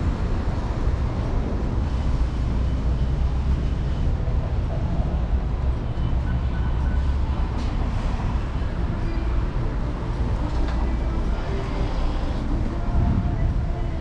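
City street traffic noise under a steady, heavy low rumble of road noise and wind on the microphone from a moving electric scooter.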